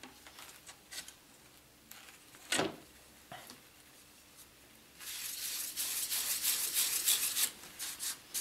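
Fingertips rubbing over a clear acrylic (Perspex) sheet where CA glue was wiped off: a dry, scratchy rubbing that starts about halfway through. It comes after a quiet stretch with a few faint taps and one short, sharper sound.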